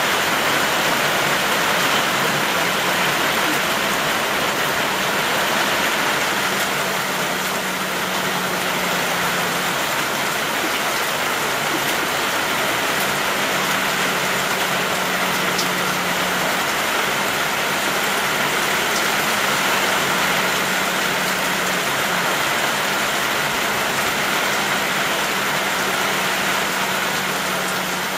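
Heavy rain falling, a steady hiss of water, with a faint low hum that comes and goes.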